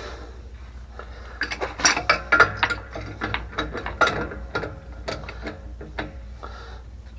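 Metal tool clicking and scraping against metal fittings in an irregular run of sharp clicks and knocks, as the plumbing connections on a water pump are tightened by hand.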